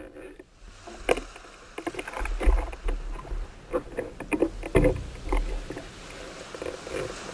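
Water sloshing and splashing around an underwater camera in shallow sea, with irregular knocks and a couple of heavier low thumps, settling into a steady wash of water near the end.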